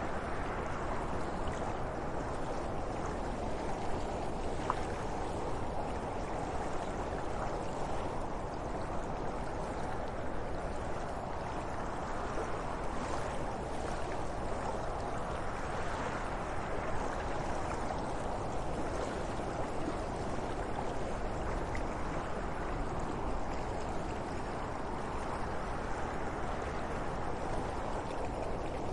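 Wind blowing steadily, a continuous rushing that swells and eases slowly every few seconds.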